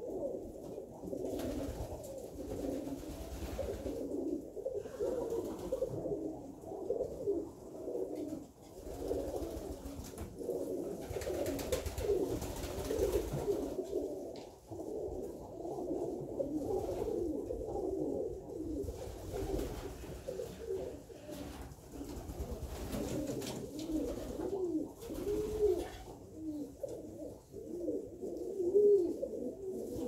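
A flock of Alföldi-Körösi tumbler pigeons cooing, many low, wavering coos overlapping without a break.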